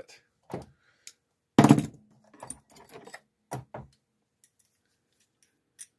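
Hand tools being picked up and set down on a work mat: a few scattered clicks and knocks of metal, with one louder clunk about one and a half seconds in.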